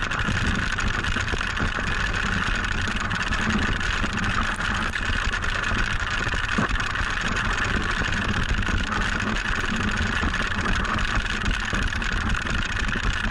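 Wooden sled's runners running fast over packed snow: a continuous scraping hiss with a low rumble from the sled shaking over the track.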